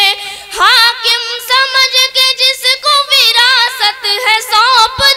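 A woman's voice singing a line of an Urdu ghazal in tarannum, the sung style of mushaira recitation, with long, wavering, ornamented notes.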